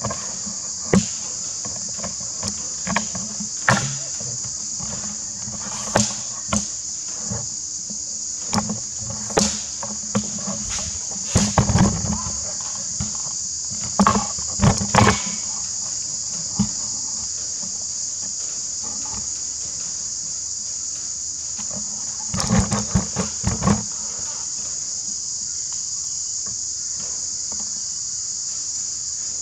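A steady, high-pitched insect chorus runs throughout. Over it come scattered knocks and clunks from the camera being handled and moved, bunched in a few flurries around the middle and about three quarters of the way in.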